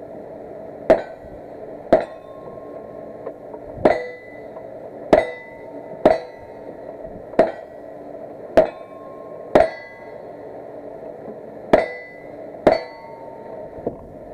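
A string of about ten gunshots at a steady pace of roughly one a second, with two short gaps, several followed by a brief metallic ring from steel targets being hit. This is a Wild Bunch cowboy action stage being shot.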